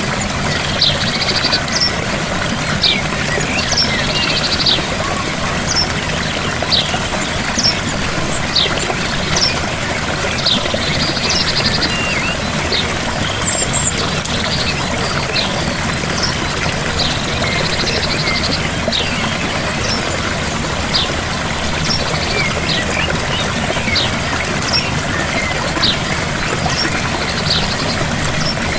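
Steady rush of a gentle waterfall, with a bird giving short high chirps every second or two and a few brief buzzy trills over the water.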